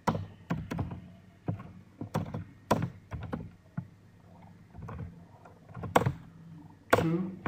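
Computer keyboard being typed on: about a dozen sharp keystroke clicks at an uneven pace over a faint steady hum, with a longer, louder sound near the end.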